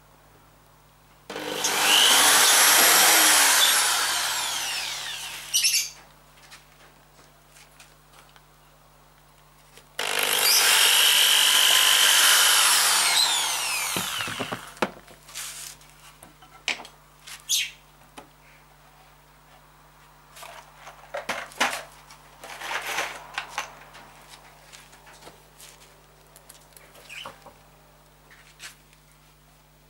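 Cordless drill boring into the pine side of a shelf in two runs of about four seconds each, the motor's pitch sagging toward the end of each run. Afterwards, scattered knocks and clicks from the wood and the tool being handled.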